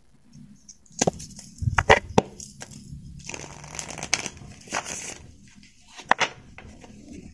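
Tarot cards being shuffled and handled by hand: cards sliding and rustling against each other in short flurries, with scattered sharp taps and clicks.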